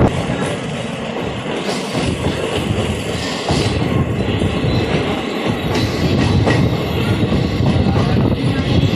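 Indian Railways express train coaches running along the track, heard close up from the coach doorway: a steady loud rumble of wheels on rail with clicks as the wheels pass over rail joints.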